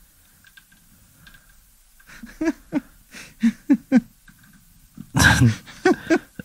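A run of short, high whimpering vocal sounds, then a loud breathy outburst about five seconds in and two more brief whimpers.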